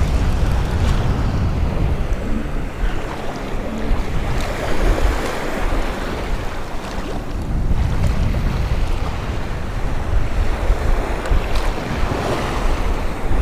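Small surf waves washing and breaking in shallow water, the wash swelling and easing every few seconds, with wind buffeting the microphone in a heavy low rumble.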